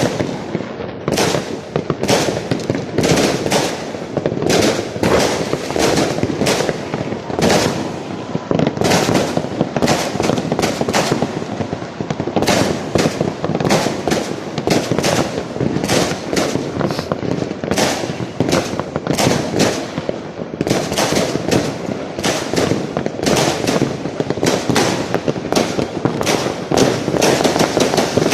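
Fireworks going off in a continuous barrage: several sharp bangs a second overlapping with crackling, with no let-up.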